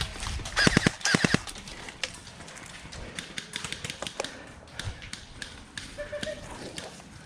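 A short shout from a man about half a second in, then scattered sharp clicks and taps at an irregular pace.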